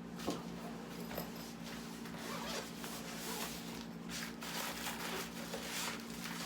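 A zipper being pulled open in a series of short strokes, with rustling and handling noise.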